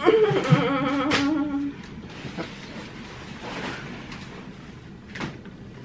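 A woman in labor moaning through a contraction: one long moan with a wavering pitch that fades out after a little under two seconds. A short knock follows about five seconds in.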